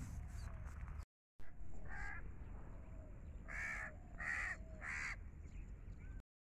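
A crow cawing four times: one caw about two seconds in, then three more in quick succession.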